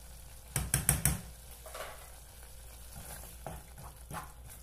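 Wooden spoon stirring a tomato sauce cooking in a pot, with a quick cluster of loud knocks about half a second in and softer taps and scrapes after. A faint sizzle of the sauce on the heat runs underneath.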